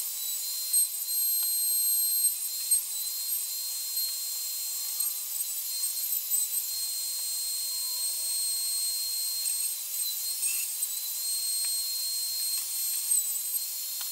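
Router mounted under a router table running at full speed with a steady high whine, its pitch dipping slightly several times as a roundover bit cuts the edges of pine boards.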